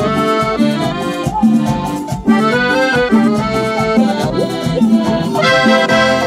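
Piano accordion playing a quick melody of short notes on the treble keys over a regular pulsing bass.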